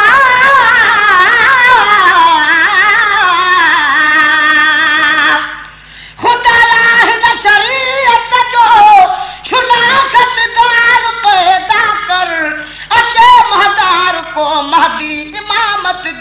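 Men singing a Sindhi maulood (devotional song). A long wavering melismatic line settles on a held note and breaks off about five and a half seconds in; then a new phrase starts with shorter, broken notes.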